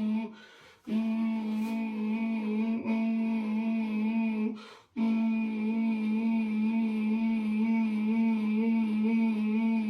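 One low note hummed steadily, its overtones wavering slightly. It breaks off twice for short pauses, about half a second in and again near the middle.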